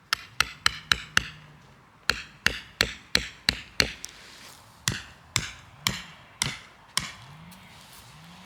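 Repeated sharp hammer blows with a bright ring, in three runs of five or six strikes at about three a second, with short pauses between the runs.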